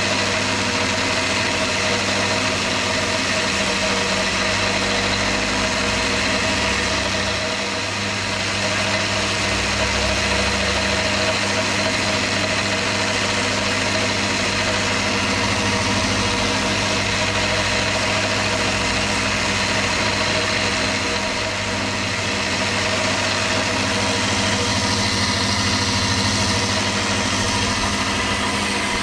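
Electric sander motor running steadily while sanding a glued leather knife sheath, easing off slightly twice.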